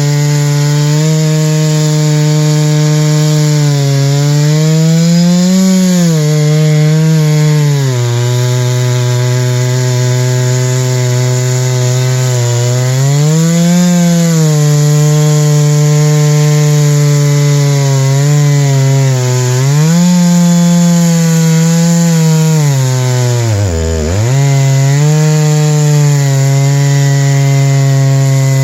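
Chainsaw under load ripping lengthwise through a white spruce log, the engine running hard and steady. Its speed rises briefly a few times, then bogs down sharply once near the end before recovering.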